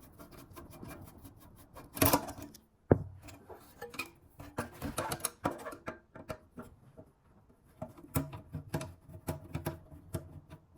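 Small handling noises of a car audio head unit being worked on by hand: irregular clicks and rubbing as a screwdriver turns out the screws of its rear cover, with a louder scrape about two seconds in and a sharp click about three seconds in.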